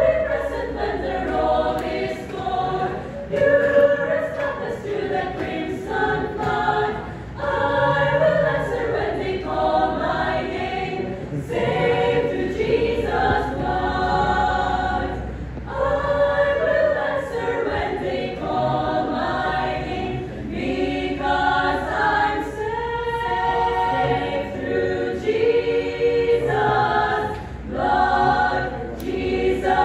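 A young women's choir singing a hymn, in long phrases with short breaks between them.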